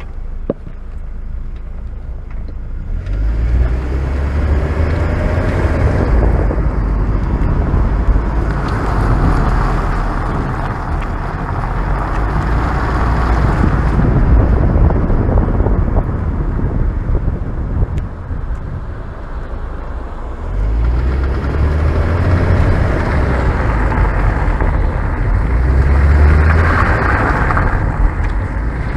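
VW Passat B5+ driving off twice, engine note rising as it pulls away, with road and running noise in between. It is being driven through turns, when this car makes a knocking noise.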